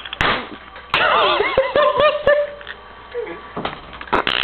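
Soda can on a string whirling on a ceiling fan and being struck at: sharp knocks just after the start and about a second in, with more knocks until a little past two seconds. Among the knocks is a wavering pitched sound that rises and falls about four times a second.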